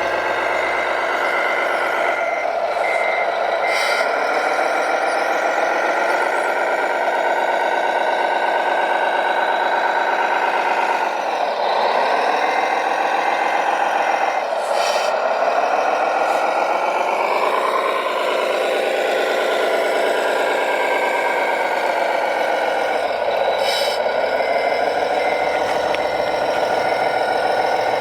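Radio-controlled truck's engine sound running continuously, dipping and rising in pitch several times as it works. A reversing beeper sounds over it.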